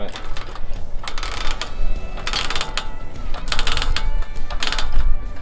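Hydraulic engine hoist being pumped by its long handle to lift an engine, a clattering, ratchet-like sound on each stroke, about four strokes roughly a second apart.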